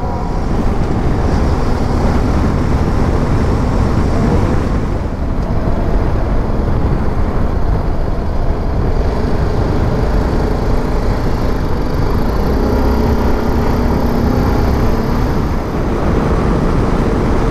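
Motorcycle riding along: its engine running under a loud, steady rush of wind and road noise, the engine's pitch drifting up and down a little with speed.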